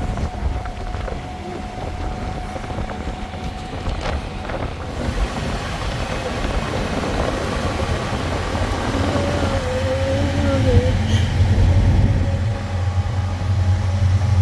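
Motor vehicle running with a steady low rumble and road noise, growing louder about halfway through. A brief wavering tone rises over it just after that.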